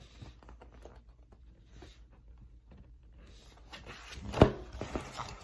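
A picture book being handled, with faint paper rustling and small ticks, and one sharp knock a little over four seconds in.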